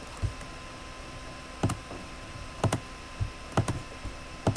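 Scattered short clicks of a computer keyboard and mouse, some single and some in quick pairs, over a faint steady background hum.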